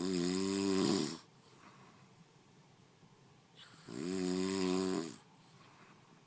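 A man snoring: two long, rattling snores, each lasting about a second and a half and about three and a half seconds apart, with quiet breathing between.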